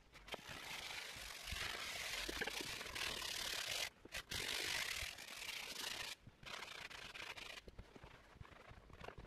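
A detailing brush scrubbing a leather car seat: long spells of scratchy rubbing with two short breaks, about four and six seconds in, then quieter rubbing near the end.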